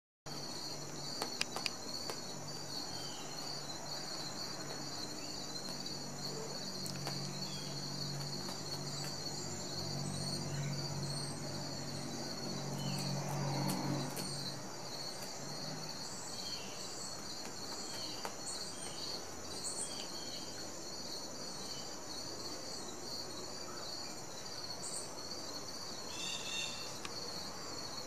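A steady, high-pitched chorus of insects chirping, with a low hum rising and fading away in the middle.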